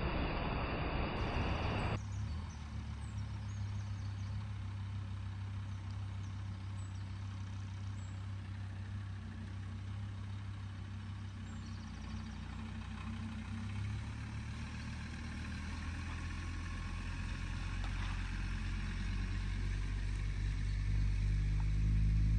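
Van engine running with a steady low hum that grows louder near the end, after a steady hiss that cuts off about two seconds in.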